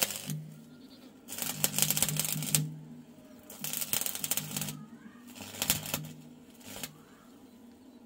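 Electric arc welding with a stick welder from a small portable inverter: three short bursts of sputtering arc crackle, each about a second long, with pauses in between as the arc is struck and broken.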